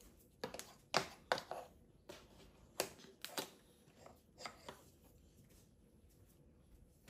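Light handling sounds at a plastic high-chair tray as a small wooden toy piece is picked up and set down: about a dozen short clicks and taps over the first five seconds, the loudest about a second in.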